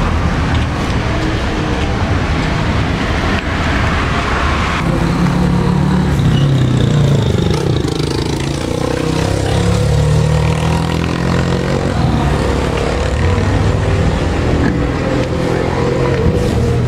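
Road traffic close by: motor vehicles running past with engine and tyre noise over a steady rumble. One passes about seven seconds in, its pitch falling as it goes by.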